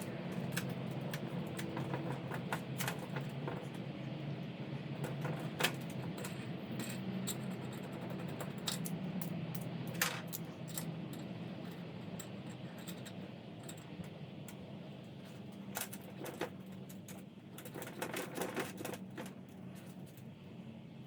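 Small metal parts clinking and tapping against each other and the bench, in scattered clicks that come thicker near the end, over a steady low hum.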